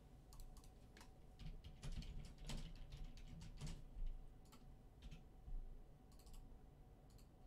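Typing on a computer keyboard: faint, irregular key clicks, thicker in the first few seconds and sparser after.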